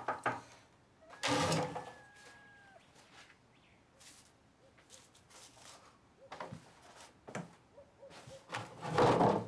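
Water splashing in a metal wash basin, then a loud wooden door sound with a drawn-out creak about a second and a half in, followed by footsteps and knocks on wooden floorboards as someone comes in. The loudest noise comes near the end.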